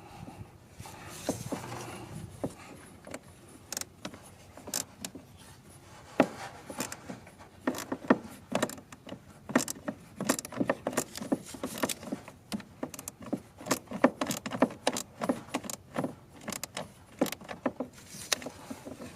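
Hand ratchet with an E8 Torx socket clicking as the eccentric shaft sensor's screws are worked loose, with metal tool clinks. The clicks are scattered at first and come in quick, irregular runs after a few seconds.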